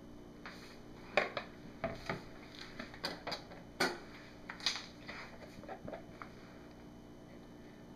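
A metal spoon and plastic measuring pitchers clinking and knocking as soap batter is spooned out and the pitchers are handled and set down on a stone counter: a scattered run of sharp taps and clicks that stops about six seconds in.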